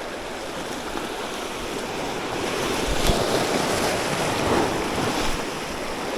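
Sea waves washing on the shore, swelling twice, with wind on the microphone and a single sharp click about three seconds in.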